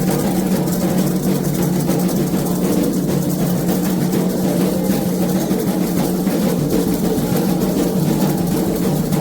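Candomblé ritual music: atabaque hand drums playing a dense, unbroken rhythm.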